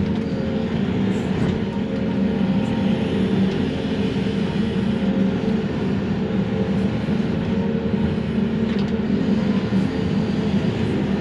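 Excavator's diesel engine and hydraulics running steadily under load, heard from inside the cab, a constant low hum while the grapple works.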